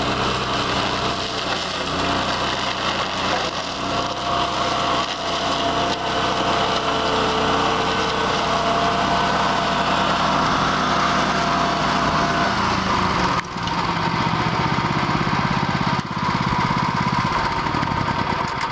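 BCS 749 walk-behind tractor's 13-horsepower Honda gas engine running steadily under load while its Berta 26-inch flail mower chops through dry cornstalks and vines. The sound dips briefly twice past the middle.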